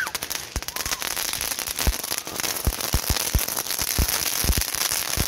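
Ground fountain firework burning: a steady spitting hiss of sparks, with irregular crackling and sharp pops throughout.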